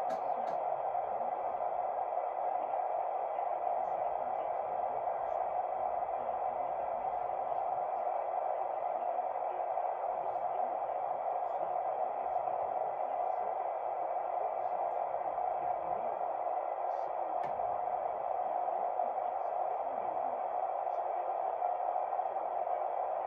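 CB radio receiver putting out steady, muffled static hiss on an open channel, with a few faint clicks.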